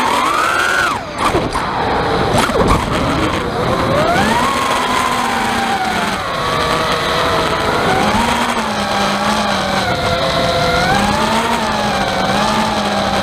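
Brushless motors of a 5-inch FPV quadcopter (EMAX 2205 2300kv) whining, their pitch rising and falling with throttle, over a constant rattle heard through the onboard camera's microphone. The pilot suspects the rattle comes from a loose microphone inside the camera rather than from the motors. A few sharp knocks sound about two seconds in.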